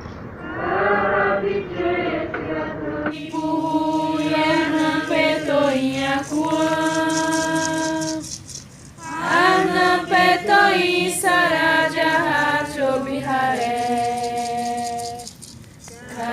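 Voices singing a chant-like song in phrases of long held notes, with a brief pause about eight and a half seconds in.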